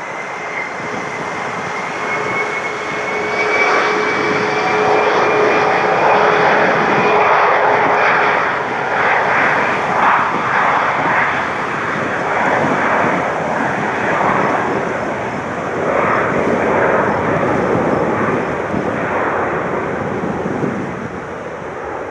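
Gulfstream business jet's twin turbofan engines: a whine with two tones rising slightly in pitch, growing about three to four seconds in into a loud, uneven jet roar that eases near the end.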